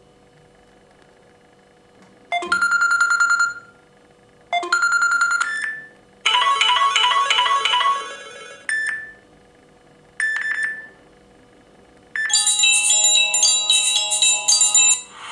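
Stock ringtones of a Samsung Galaxy tablet previewed one after another: five short electronic chiming tunes, each cut off after about a second, then a longer, fuller ringtone melody starting near the end.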